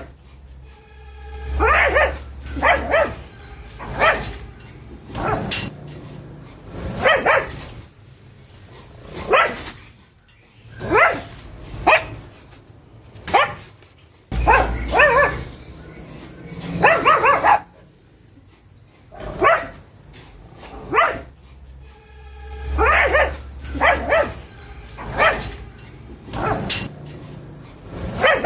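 Pug barking in short, separate barks and yips, about one every second, some coming in quick pairs, with a few brief pauses between runs.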